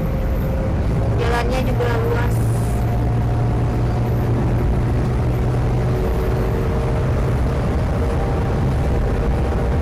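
Steady road and engine noise inside a moving car's cabin on a wet road: a constant low hum with tyre hiss over it.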